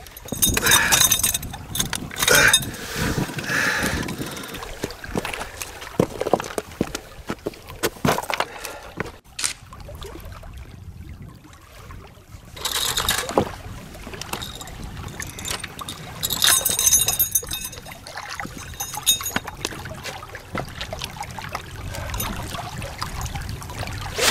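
Small waves lapping and gurgling against the rocks of a lakeshore, with scattered clicks, knocks and rustles of handling on the rocks.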